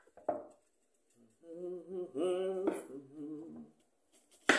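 A person humming a tune in a few held notes, starting about a second and a half in, with a few short clicks and a sharp knock near the end.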